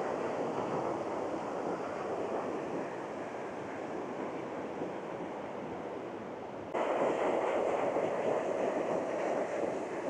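Steady rushing of a small mountain stream, which jumps abruptly louder about seven seconds in.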